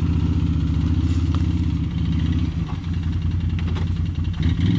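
Can-Am ATV engine running steadily at low revs as the quad creeps along, its note shifting slightly about halfway through.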